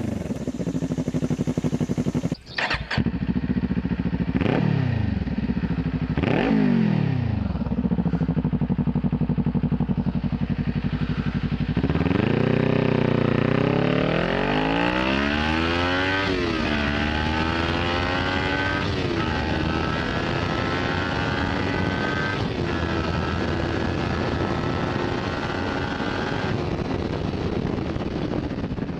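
Kawasaki Ninja 400's parallel-twin engine through an aftermarket MMW BRAP slip-on exhaust. It idles with two quick throttle blips whose pitch shoots up and drops back. Near the middle the revs climb steadily, peak, dip briefly and rise again, then hold at a higher steady note.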